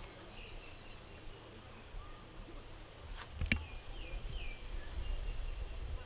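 Faint outdoor ambience: a few short, falling chirps from small birds, a low rumble that grows stronger in the second half, and one sharp click about three and a half seconds in.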